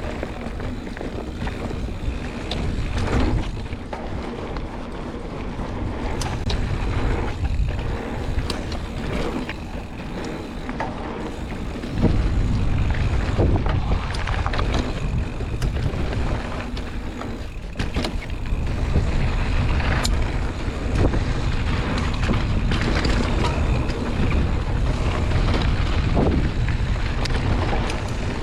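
Wind rushing over the microphone of a rider moving fast down a rough dirt trail, with scattered knocks and rattles from the ride over the ground. The wind noise grows louder about twelve seconds in.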